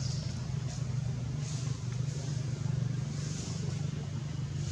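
A steady low motor hum, like an engine running, with a high hiss that swells and fades every second or two.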